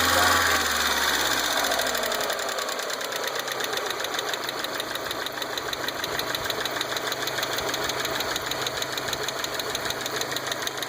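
1.8T turbo engine dropping back from a rev to idle, then idling with a fast, even metallic ticking chatter. This is the knock the owner says has started coming from the engine.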